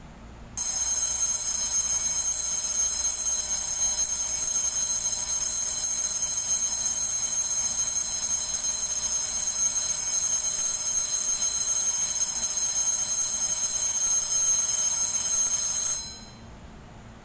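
Railway platform departure bell ringing loudly and continuously for about fifteen seconds, then cutting off abruptly: the signal that the train is about to leave.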